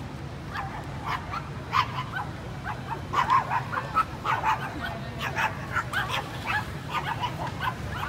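A small dog yapping, short high barks coming a few to the second from about half a second in, over a steady low background hum.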